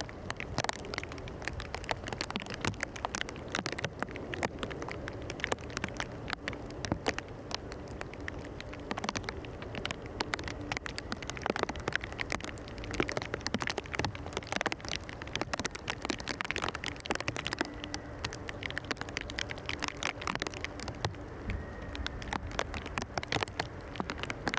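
Rain pattering on a surface close to the microphone: a dense, irregular scatter of sharp ticks over a steady hiss.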